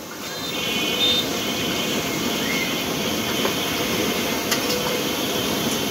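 Potato strips deep-frying in a large karahi of hot oil: a steady, dense sizzle of bubbling oil.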